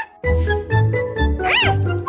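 Cartoon background music, with one short meow from a cartoon kitten about one and a half seconds in, its pitch rising and then falling.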